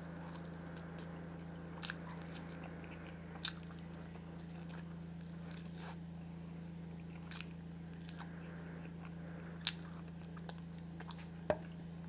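Close-miked chewing and gnawing of meat off a rib bone held in the hands, with scattered sharp biting clicks and one louder knock near the end, over a steady low hum.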